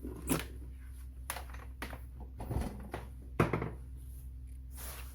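A series of sharp clicks and knocks a second or so apart, the loudest near the start and about three and a half seconds in, as hard objects are handled, over a steady low electrical hum.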